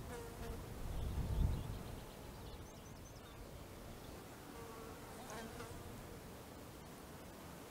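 A flying insect buzzing past, its steady drone fading in and out several times, with a few faint high chirps. Wind rumbles on the microphone in the first second or so.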